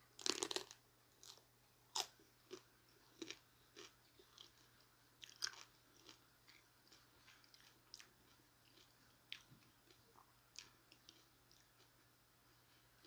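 A bite into a chicken taco, with a loud crunch in the first second, followed by chewing: scattered mouth clicks and smaller crunches that thin out toward the end.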